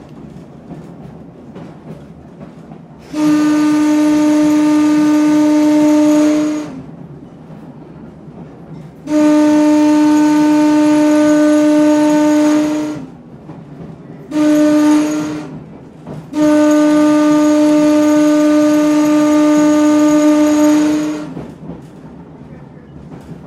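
An electric railway car's air whistle, worked by a pull cord in the cab, sounding one steady tone in four blasts: long, long, short, long. This is the grade-crossing warning signal for a road crossing ahead. The car's running rumble continues between the blasts.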